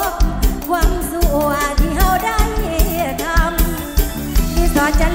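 Live Isan mor lam (tey) band music with a steady drum beat about twice a second, and a woman singing a gliding melody into a microphone.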